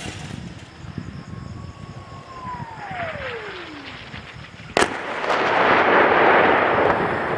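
An incoming shell whistling, its pitch falling steadily for about three seconds, then a single sharp blast of its explosion a little under five seconds in, followed by a loud noise that swells for a couple of seconds.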